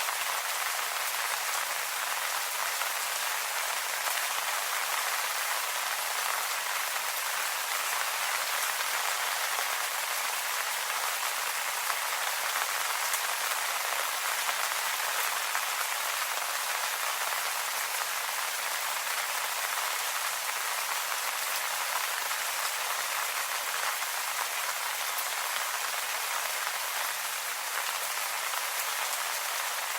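Steady rain falling on leaves: an even hiss with faint, scattered drop ticks.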